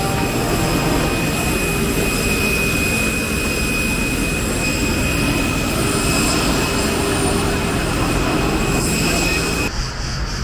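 Steady engine noise of a vehicle, an even rumble and hiss with a thin high whine over it, cutting off abruptly near the end.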